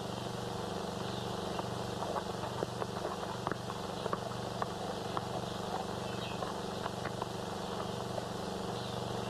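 Steady hiss and low hum of an old film soundtrack, with many small scattered clicks.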